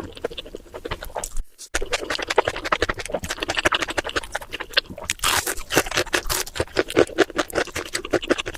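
Close-miked chewing: wet, crunching bites of crispy fast food in quick, irregular clicks. The sound cuts out briefly about one and a half seconds in, then comes back denser.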